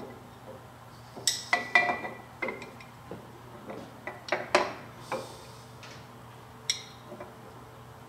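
Steel balancer shaft being slid into the freshly bushed bore of a Kubota diesel engine block, with irregular metal-on-metal clinks and taps that ring briefly. The clinks come in a cluster about one to two seconds in, again around four to five seconds, and once more near the end.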